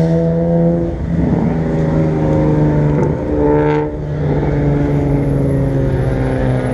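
A car engine running at a steady, held speed, its note shifting slightly a few times.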